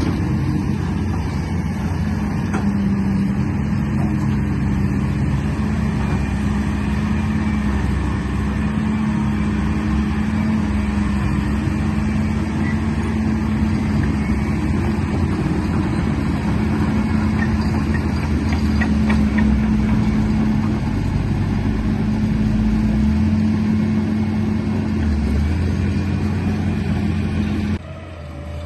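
An engine running steadily with a low, even hum, which cuts out shortly before the end.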